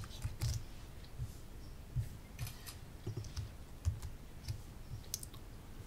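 Computer keyboard keys and mouse buttons clicking now and then: a dozen or so faint, irregularly spaced clicks.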